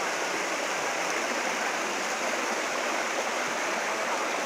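Mountain stream rushing over rocks and small falls, a steady, even rush of water.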